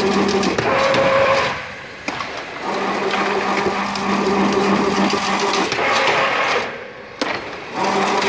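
Automatic chain link fence machine running, its drive humming steadily under a rapid mechanical clatter as it weaves wire mesh. The running sound drops away twice, about five seconds apart, for roughly a second each time, with a single sharp knock in each lull.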